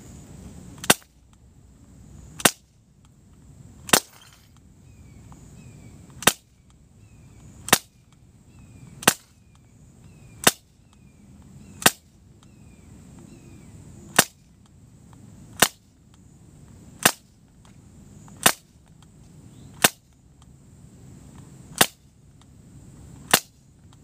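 Beretta Elite II CO2 BB pistol fired in slow single shots: about fifteen sharp cracks, evenly spaced roughly a second and a half apart.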